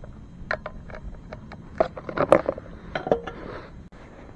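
Handling clicks and knocks as a metal-cased power inverter is shifted on and lifted off a plastic truck trim panel, loudest about two seconds in.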